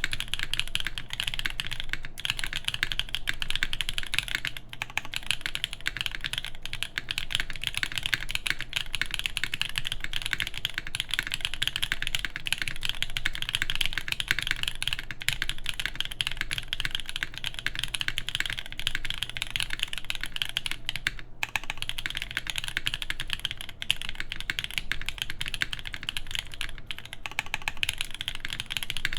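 Continuous fast typing on a tenkeyless mechanical keyboard with lubed Black Cherry Pie linear switches in an aluminum full plate, under DCX doubleshot keycaps, with brief pauses between bursts of keystrokes.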